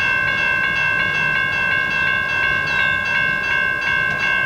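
Railroad grade-crossing bell ringing rapidly, about three strikes a second, over the low rumble of a freight train's last boxcars rolling past.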